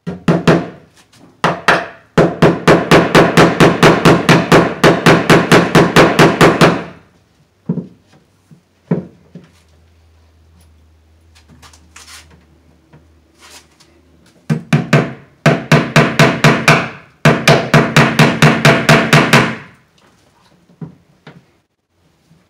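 Hammer tapping rapidly, about four or five blows a second, in runs: a long run from about two to seven seconds in and two more runs from about fifteen to twenty seconds in, with a few scattered blows between. It is driving cable staples to fasten electrical cable to the plywood wall.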